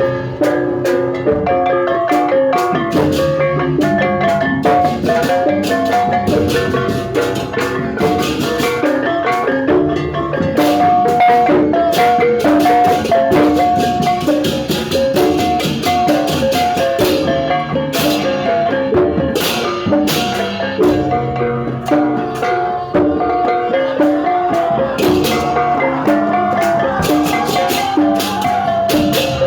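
Percussive music: repeating notes on tuned metal or mallet percussion over a steady drum beat, with sharp crashing strokes about two-thirds of the way through.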